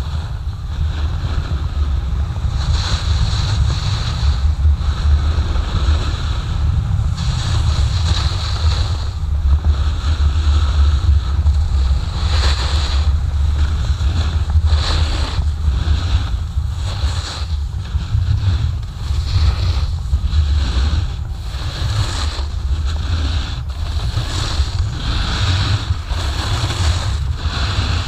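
Wind rumbling on the microphone of a pole-held action camera as a snowboard slides down a groomed piste, with the board's edge scraping and hissing over the snow in surges every second or two as it carves turns.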